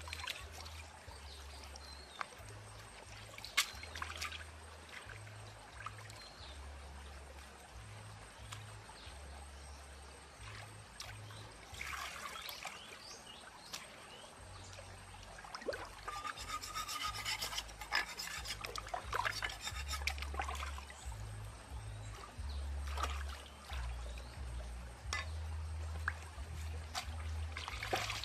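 Hands scrubbing and rubbing a plucked duck carcass in shallow stream water, with irregular scraping strokes, splashes and water dripping and trickling off the bird. Near the end, feet splash through the shallow water.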